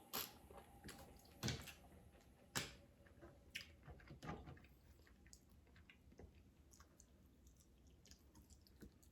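Faint close-up eating sounds from a seafood boil: quiet chewing with scattered sharp clicks, the loudest three in the first three seconds.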